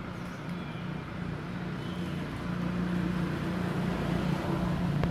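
A motor engine running steadily with a low hum, getting somewhat louder from about halfway through.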